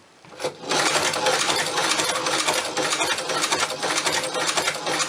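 Hand-crank China leather shoe patcher sewing machine stitching through two layers of leather: a steady, rapid clatter of the needle mechanism that starts under a second in.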